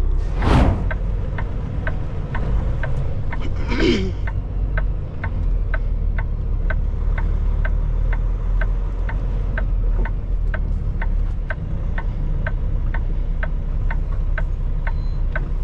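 Semi truck's diesel engine running low and steady inside the cab, with the turn signal clicking about twice a second. A short whoosh just after the start and a falling swish near four seconds.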